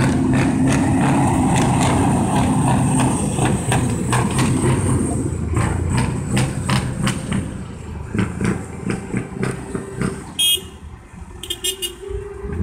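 Diesel engines of articulated tractor units running as they drive past one after another, loudest for the first few seconds and then easing off. A few short horn toots come near the end.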